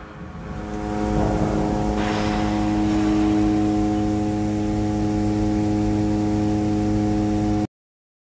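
2001 Haas Mini Mill vertical machining center running under power: a steady machine hum with several fixed tones that builds up over the first second, with a hiss joining about two seconds in. It cuts off abruptly near the end.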